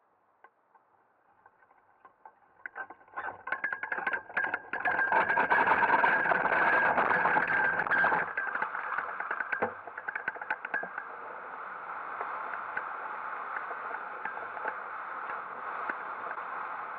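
Hang glider launch trolley bumping and rattling over rough grass as it speeds up under tow, with growing wind rush. The rattle stops abruptly a little past halfway, at lift-off, leaving a steady rush of wind on the glider-mounted microphone.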